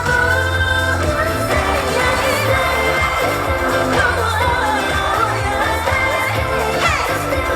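K-pop song performed live over a loud sound system: a pop track with a pulsing bass beat and a sung melody.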